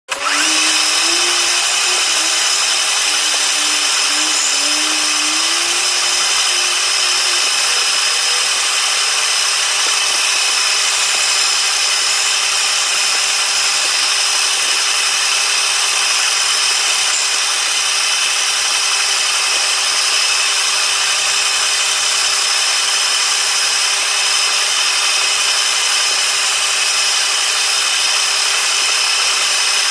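Wood lathe running steadily as a piece is turned: a constant high hiss with a steady whine. A wavering lower tone fades out about seven seconds in.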